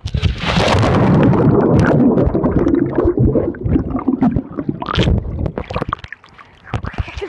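Someone plunges into a swimming pool with the microphone going under: a splash, then loud muffled underwater rumbling and bubbling that thins out and drops away about six seconds in, followed by choppy splashing as it comes back up near the end.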